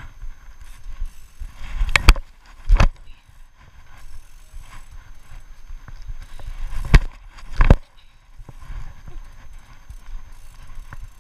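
BMX bike rolling over concrete with a low rumble of tyres. Twice there is a pair of sharp knocks, less than a second apart, as the wheels strike the ground.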